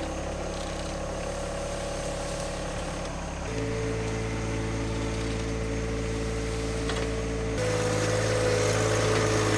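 John Deere 1025R compact tractor's three-cylinder diesel engine running as the tractor drives on grass. The engine note shifts and gets louder about a third of the way in, then shifts and gets louder again near the end.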